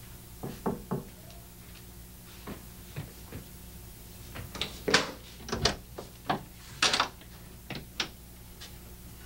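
Knocking on a door: three soft knocks within the first second, a few faint taps, then a run of louder, uneven knocks and bangs about five to eight seconds in.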